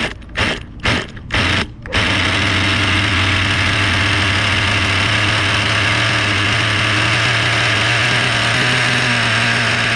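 Traxxas Pro 15 nitro engine being pull-started: a few short bursts as the cord is pulled, then it catches about two seconds in and idles steadily through its MIP Stinger exhaust. The start is a clean one and the running engine is super quiet.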